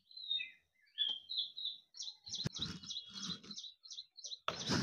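Small birds chirping, a quick string of short high chirps, over some rustling. A single sharp click comes about halfway through.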